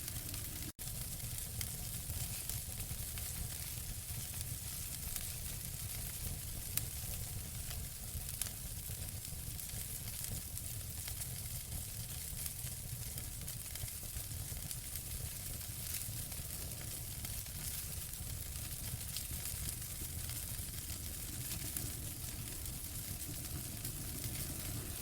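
Wood fire crackling: a steady hiss of burning with frequent small sharp pops and snaps scattered through it, broken by a momentary dropout less than a second in.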